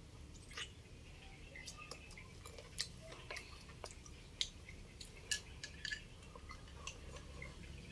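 Faint eating sounds of chicken rice porridge being chewed, wet and soft, with scattered sharp clicks of chopsticks against a porcelain bowl, a few of them louder around the middle.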